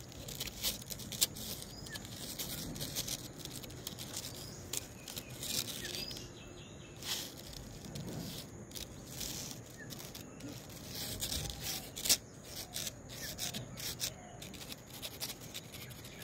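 Kittens' claws scratching and scrabbling at a painted wall, a string of short, irregular scratches and scuffs.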